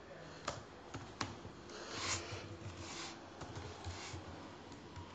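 Faint typing on a computer keyboard: a few separate key clicks, with softer noises in between.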